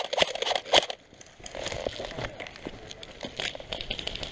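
Rustling and crackling of a player moving through long grass, with small clicks from gear, after several loud sharp sounds in the first second.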